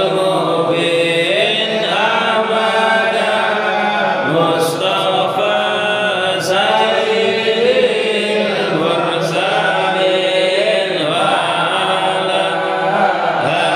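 Men's voices chanting an Arabic sholawat together, a slow melodic chant with long held and gliding notes.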